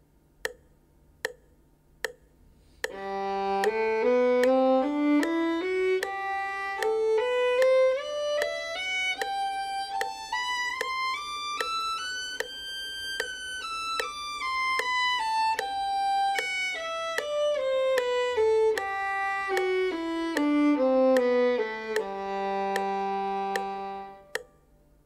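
Violin playing a long-tonic scale to a metronome ticking at 75 beats a minute: after a few bare clicks the violin enters about three seconds in on a long low tonic, climbs step by step through about three octaves in slurred bows, and comes back down to a long-held tonic that stops near the end. The metronome clicks keep going beneath the playing.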